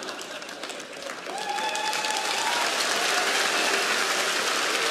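Studio audience applauding, swelling louder about a second in.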